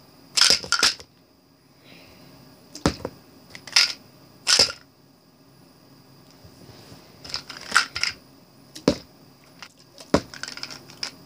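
Small plastic supplement bottles being flipped: each one knocks and clatters as it lands on another bottle or on a hardcover book, or topples over. The knocks are separate and sharp, about ten of them, some in quick pairs. These are repeated attempts to land one bottle upright on top of another.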